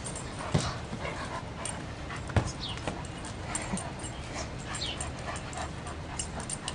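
Great Danes at play giving short, high, falling whimpers, with two sharp thumps about half a second and two and a half seconds in.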